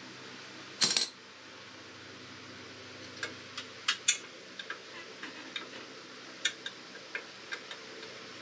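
A sharp metallic clank about a second in, then irregular metallic clicks, a few a second, from a quarter-inch ratchet on an extension being worked to tighten a motorcycle's exhaust fasteners.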